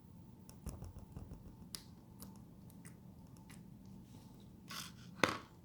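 Handling noise: scattered small clicks and short rustles, then a brief rustle and one sharp, louder click near the end.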